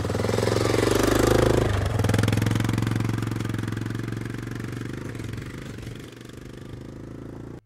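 Quad bike (ATV) engine running as it drives past and away, loudest at first, with a brief change in its note about two seconds in, then fading steadily.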